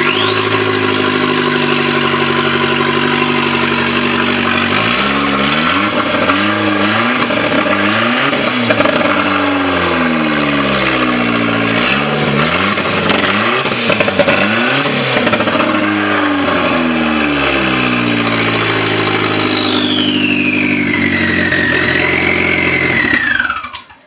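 Chevy Sonic's 1.4-litre turbocharged four-cylinder running with the downpipe removed, exhausting straight out of the turbo, loud with a high turbo whine. It idles, is revved several times in quick succession, with the whine climbing and falling each time, settles back to idle, then shuts off near the end as the whine winds down.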